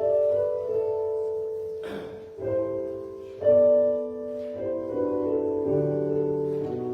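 Piano playing a slow prelude of held chords and melody notes, with a brief noise about two seconds in.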